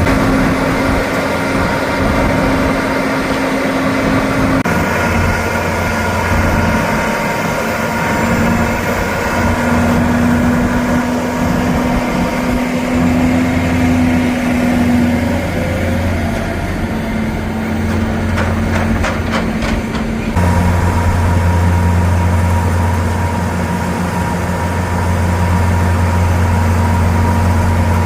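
Motorised farm machinery running steadily with a constant hum. The note changes abruptly twice. A quick series of clicks or knocks comes about two-thirds of the way through.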